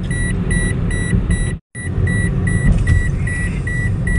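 Steady road and engine rumble inside a moving car's cabin, with a dashboard warning beep repeating about two and a half times a second. The sound cuts out for a split second about one and a half seconds in, then carries on.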